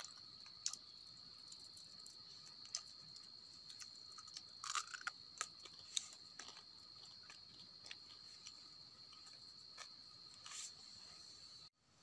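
A faint, steady high-pitched drone of forest insects, with scattered small clicks and crunches of someone chewing grilled fish. The insect drone cuts off abruptly near the end.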